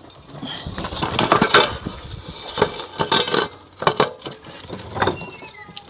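Irregular knocks, bumps and metallic clinks from a fridge freezer being manhandled through a house's front door, heard through a Ring doorbell's microphone. The hits are loudest about a second and a half, three and four seconds in.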